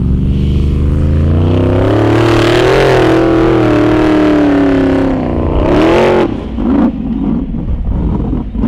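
Formula Offroad hill-climb buggy's engine at full throttle up a steep sand slope: the revs climb over the first couple of seconds and hold high, flare once more, then cut off about six seconds in, leaving rougher, fainter broken noise.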